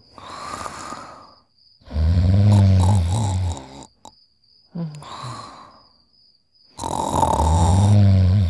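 Cartoon dogs snoring: two loud, low-pitched inhaling snores about five seconds apart, each lasting about a second and a half, with softer breathy exhales between them.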